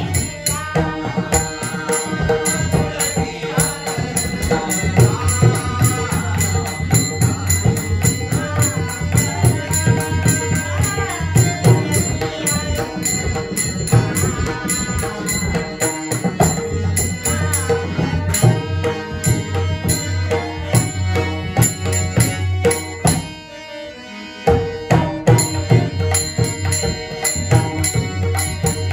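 Devotional bhajan music: a pakhawaj drum keeps up a steady, dense rhythm under a wavering melody line. The music dips briefly about 23 seconds in, then the drumming resumes.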